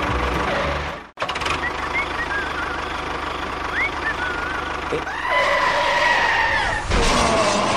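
Tractor engine running steadily, cut off briefly about a second in. A few short whistling chirps sound over it, then a long wavering call with a high and a lower tone from about five seconds in.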